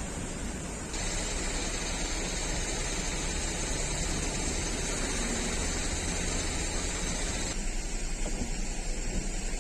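Steady hiss of falling rain, the sound changing abruptly about a second in and again near the end.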